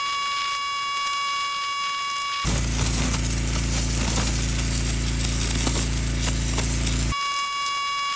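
Northstar 4000 PSI gas pressure washer running while its water jet cuts into an oak root. A steady high whine gives way abruptly, about two and a half seconds in, to the louder hiss of the spray over a low, steady engine hum. The whine returns just as abruptly about seven seconds in.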